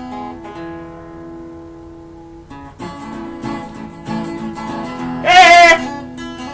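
Acoustic guitar strummed and plucked: a few notes ring on at first, then strumming picks up about three seconds in. Near the end a voice briefly wails one loud, wavering sung note over the guitar.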